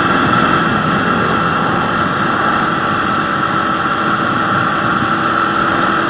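Steady rush of wind over the microphone of a moving motor scooter, with the scooter's engine running at cruising speed underneath.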